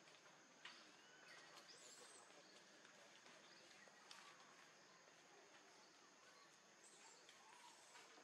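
Near silence: faint outdoor background with a steady high faint hum, a few soft clicks and some faint short chirps.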